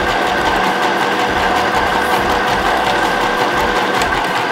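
Portable mini sewing machine running on its high-speed setting, its needle stitching a zigzag seam through fabric with a steady, fast, even stitching rhythm.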